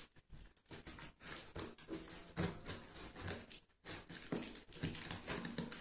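Scissors cutting along packing tape on a cardboard box: a string of faint, irregular scratchy snips and rustles.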